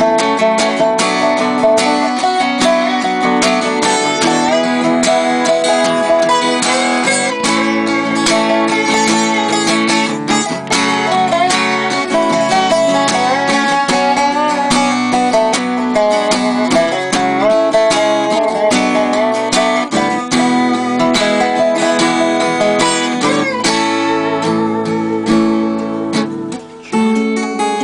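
Acoustic guitar and a Dobro resonator slide guitar playing together, instrumental. The guitar strums and picks the accompaniment while the Dobro plays a melody that glides between notes. The music briefly drops away just before the end.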